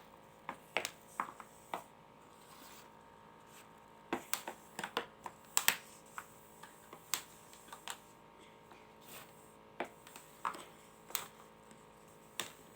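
Plastic air hockey pucks clacking against the paddles and the table's rails in play: irregular sharp knocks, some in quick runs, over the steady hum of the table's air blower.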